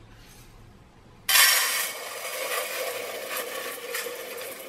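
Dry uncooked rice poured from a glass jar into a metal cooker pot. The grains hit the metal in a dense hissing patter that starts suddenly about a second in and runs on, easing a little.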